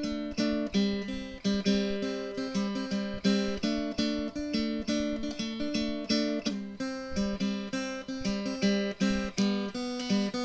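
Background music: an acoustic guitar picking a steady, repeating pattern of notes.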